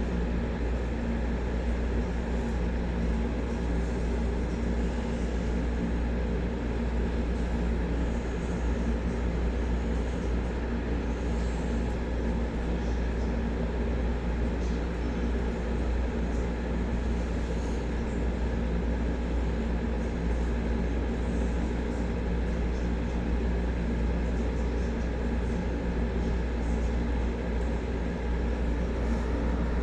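Steady low rumble with a constant hum, unchanging in level throughout.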